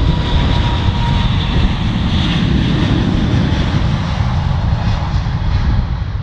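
An Airbus A380's four Rolls-Royce Trent 900 jet engines run as the airliner rolls past along the runway: a steady, loud low rumble with a high engine whine on top.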